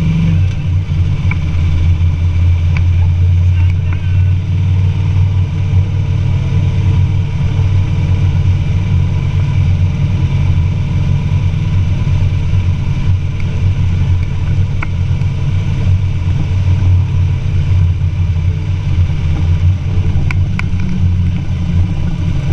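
Motorcycle-and-sidecar rig cruising at steady road speed: a constant low engine drone with rushing wind noise over it.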